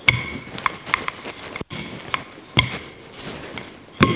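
Wooden rolling pin rolling out shortcrust pastry on a kitchen benchtop: a soft rolling rumble with scattered knocks and taps. The louder knocks come just after the start, about halfway through and near the end.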